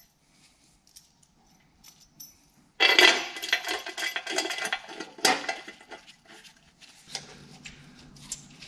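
Metal clinking and rattling of bolts and a hand wrench as a bell housing is fastened to an engine block: a few soft clicks, then a busy run of clicks and rattles with one sharp metal clank in the middle.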